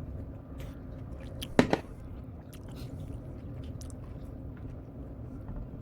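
A person chewing pandan cake close to the microphone, with small wet mouth clicks and one sharper click about a second and a half in.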